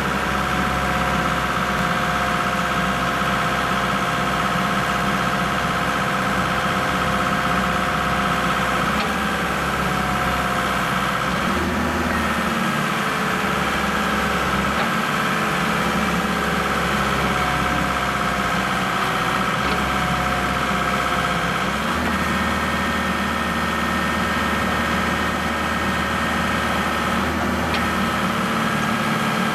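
Forklift running steadily with a whine, its hydraulics driving a bale clamp: the low hum steps up and down every few seconds as the clamp arms open and close.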